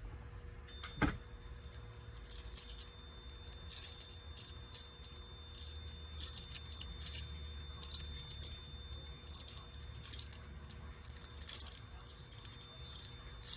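A sharp click about a second in as the agent release pull station is pulled, then a steady high-pitched electronic tone holds as the fire alarm system goes into pre-discharge. Keys jangle on and off over it.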